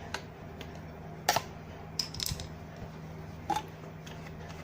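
Handling sewing machine parts: a few separate small clicks and taps of metal pieces, the loudest about a second in, over a steady low hum.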